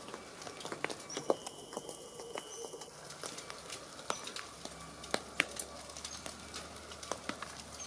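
Falling sleet, a mixture of ice, snow and rain, making an irregular patter of small ticks and taps.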